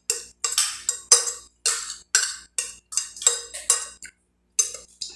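Close-up chewing of a mouthful of rice and stewed chicken: a steady run of short mouth clicks, about two to three a second.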